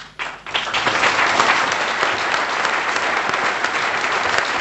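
Audience applauding, starting suddenly and swelling to full strength within about a second, then holding steady.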